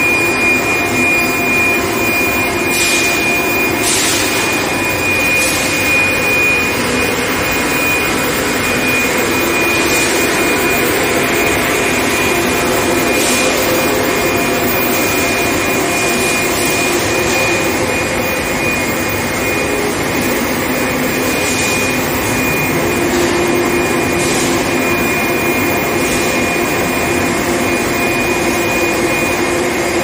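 Induction heat treatment line running: a steady machine noise with a constant high whine, and a few short knocks now and then as the bars travel over the conveyor rollers.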